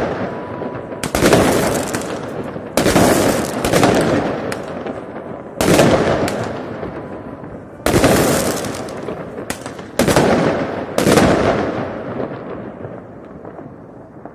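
Aerial fireworks shells bursting overhead: about seven sharp bangs at irregular intervals of one to two seconds, each trailing off in a long echo off the surrounding buildings; the last comes about eleven seconds in and the echo dies away.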